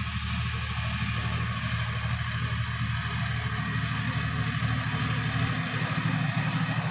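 Sonalika DI-50 RX tractor's diesel engine running steadily while it tills a field with a rear-mounted rotary tiller, growing a little louder near the end as it comes closer.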